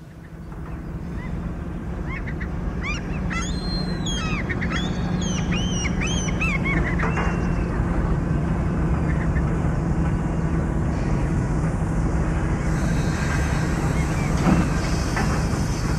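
Industrial yard ambience: a steady low machinery hum swells in at the start and holds. A run of gliding high-pitched bird calls comes about two to seven seconds in. More hiss and clatter join near the end.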